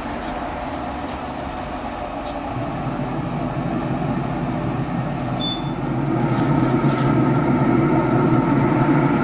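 Traeger pellet grill running at cooking temperature: a steady hum from its fan and motor that grows louder about halfway through, with a few light clicks as the lid is lifted and a pan of chips is set on the grate.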